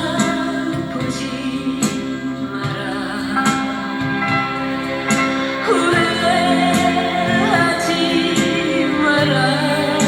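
A Korean song plays back from a cassette tape: a woman sings over band accompaniment, with a regular drum beat.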